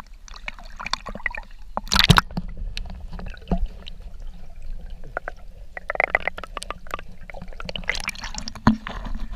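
Swimming-pool water splashing and sloshing as a dog paddles right by a camera at the waterline that dips under the surface and comes back up. Loud bursts of splashing come about two seconds in, around six seconds, and again near the end, with quieter lapping and gurgling between.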